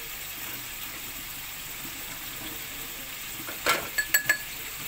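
Metal spoon stirring custard powder in a small glass bowl, with about four quick clinks of spoon against glass near the end, over a steady background hiss.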